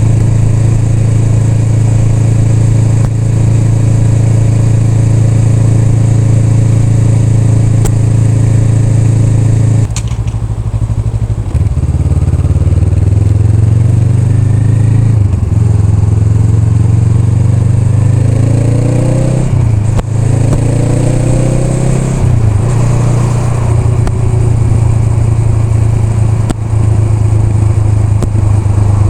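Honda Rebel 500's parallel-twin engine cruising at a steady speed. About ten seconds in the revs drop, then the engine pulls up through the gears in a few rising sweeps before settling back to a steady cruise.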